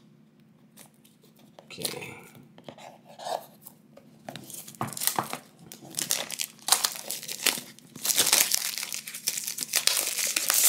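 Clear plastic shrink wrap being torn and peeled off a cardboard box by hand. Scattered crackles start about two seconds in and build into a denser, louder run of crinkling over the last few seconds.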